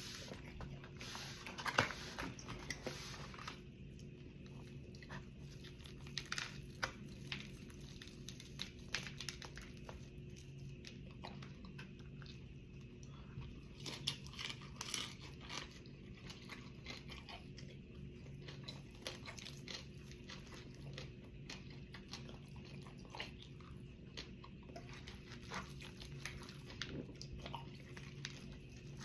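Close-up chewing and biting into air-fried chicken: irregular crunches and chewing, with the loudest crunch about two seconds in.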